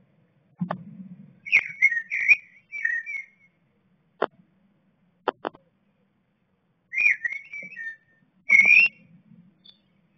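Blue tit inside a nest box giving short, quick chirping calls in two bouts of about two seconds each. A few sharp clicks come between the bouts, with soft rustling.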